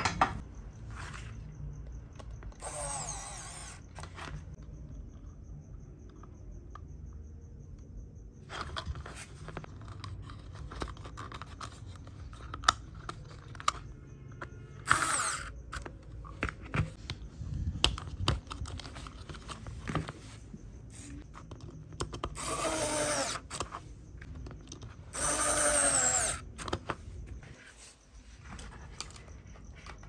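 Small cordless pen-style electric screwdriver whirring in short bursts, about four times, as it drives small screws into the plastic parts of an RC car. Between the bursts come light clicks and knocks of handling the plastic parts.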